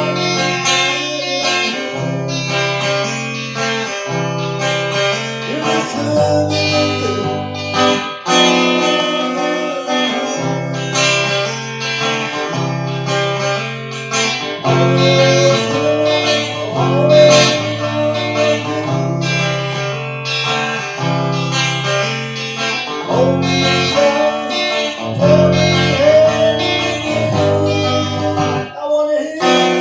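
Guitar music played on plucked strings, with bass notes changing about once a second under a melody line.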